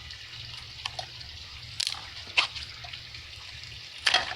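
Scissors snipping and crunching through the plastic of a squirt gun toy: a few sharp, separate snips, the loudest near the end, over a low steady hum.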